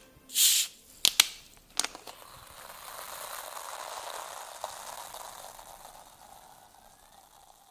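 Fizzing sound effect: a short hiss, a few sharp clicks, then a soft fizzing hiss that swells and slowly fades out.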